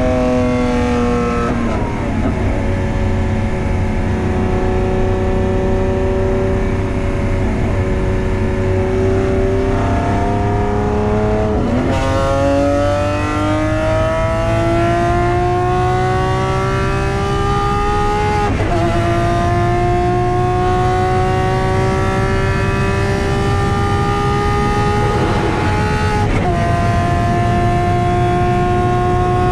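Lamborghini Aventador SVJ's naturally aspirated 6.5-litre V12 with a Novitec exhaust under acceleration at Autobahn speed, heard from inside the cabin. The engine note climbs slowly and dips sharply four times, the last near the end an upshift from fifth into sixth.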